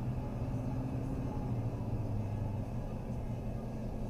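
A car's engine and tyre noise heard from inside the cabin while driving at around 25–30 mph: a steady low hum over road noise.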